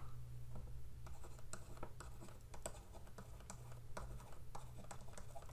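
Stylus tapping and scratching on a tablet during handwriting: a string of faint, irregular clicks and scrapes over a faint steady low hum.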